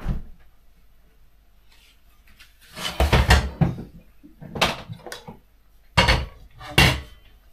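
Cookware being handled in a stainless steel sink: a pot and its lid clatter and clank in a quick run about three seconds in, followed by three separate knocks over the next few seconds.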